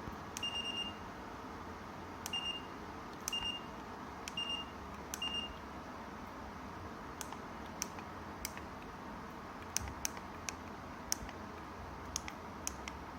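Electric fan heater's control panel beeping: five short, high single beeps about a second apart, as when its buttons are pressed, followed by a scattering of sharp clicks. A steady hiss runs underneath.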